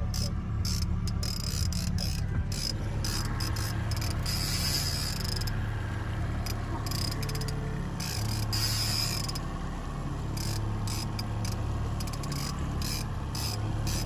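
Outboard motor running steadily at trolling speed, with irregular clicking and ratcheting from a fishing reel as a salmon is fought on a bent rod.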